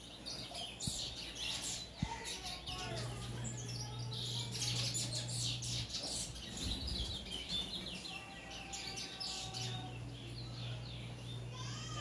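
Caged bullfinch (chestnut-bellied seed finch) singing: rapid high chirps and twittering phrases, with a low hum that comes and goes in the background.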